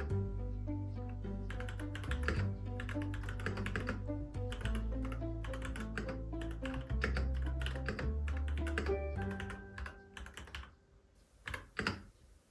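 Typing on a computer keyboard, quick key clicks over background music. The music fades out near the end, leaving a few separate keystrokes.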